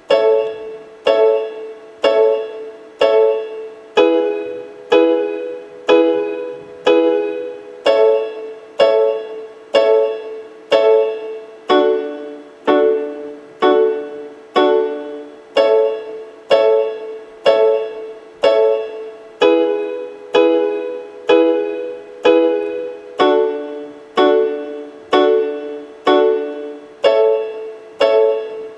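Electronic keyboard with a piano voice playing single chords in a reggae skank pattern, one chord struck about once a second and left to decay. The chords cycle in groups of four through A major, E major, A major, D major, then A major, E major, D major, A major.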